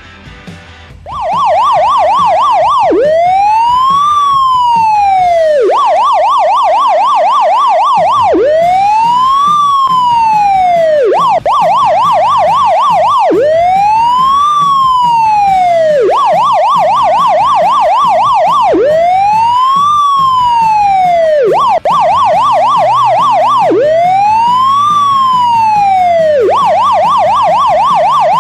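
An electronic emergency-vehicle siren starts about a second in and loops: a fast warble alternates with a slow wail that rises and falls, over and over.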